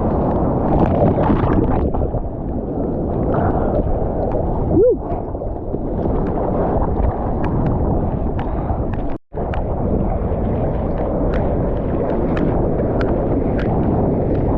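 Wind buffeting the microphone over churning surf and splashing water. There is a short rising squeak about five seconds in, and the sound cuts out for an instant about nine seconds in.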